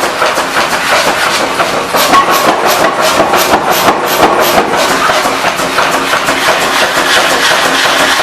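Forge workshop machinery running with a steady hum, with a quick rhythmic run of short hissing pulses, about three a second, from about two to four and a half seconds in.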